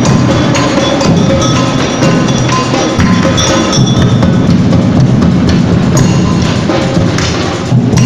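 A percussion band plays a steady, driving rhythm on large bass drums and smaller stick-played drums. A clacking hand-held percussion part runs over the top.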